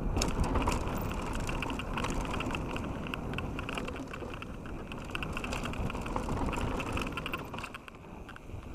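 Canyon Strive enduro mountain bike rolling fast down a gravel trail: steady rumble of the tyres over loose stones, with frequent rattling clicks from the bike, easing off a little near the end.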